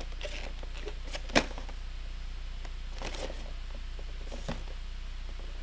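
Light taps and rustles of a cardboard Pokémon card collection box being turned over and handled, with one sharper click about a second and a half in. A steady low electrical hum runs underneath.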